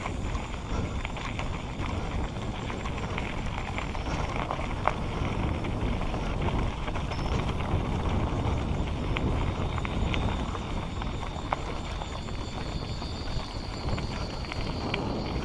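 Mountain bike rolling down a rough dirt trail: tyres crunching over dirt and loose stones, with many small clicks and knocks from the bike rattling over the bumps.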